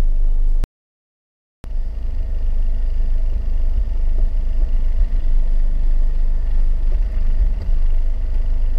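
Parked Ford Everest's engine idling, a steady low rumble heard inside the cabin, broken by about a second of dead silence shortly after the start.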